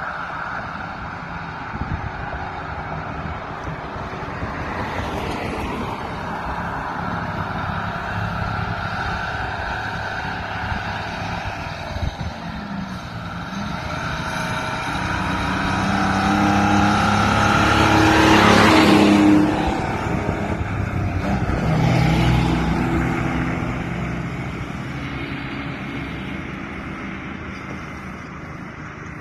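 Ford L8000 pump truck with a two-stroke Detroit Diesel engine driving by. The engine grows louder as the truck approaches, is loudest about two thirds of the way through with a second, smaller swell just after, then fades as the truck pulls away.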